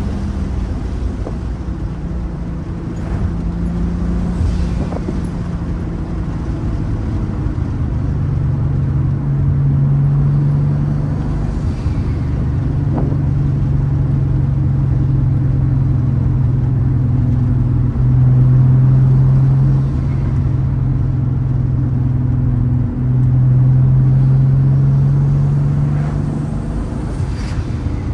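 Turbocharged VR6 engine and exhaust droning at a fairly steady load, the pitch creeping up slowly. It breaks off sharply twice, for a moment each time, about two-thirds of the way through.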